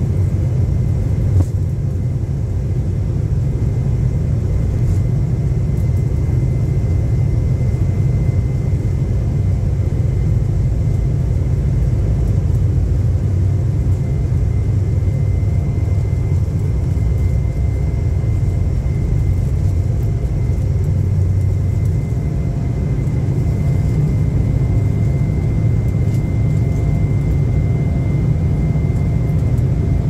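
Commercial airliner's jet engines at takeoff power, heard from inside the cabin: a loud steady rumble with a thin high whine over it, through the takeoff roll and lift-off.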